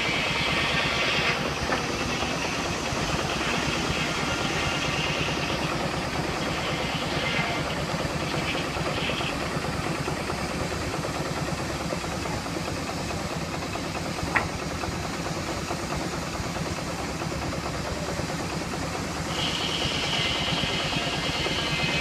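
Portable steam engine running a sawmill with a fast, even beat. A hiss in the upper range fades out about a second in and comes back near the end, and there is one sharp click a little past the middle.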